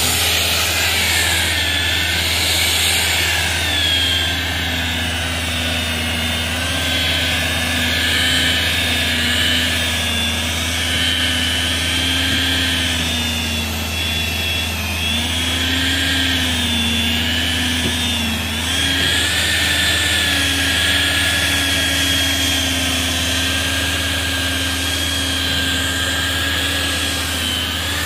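JCB electric rotary polisher with a foam pad running steadily on a car's painted bonnet: a continuous motor whine whose pitch wavers slightly as the pad is pressed and moved over the paint.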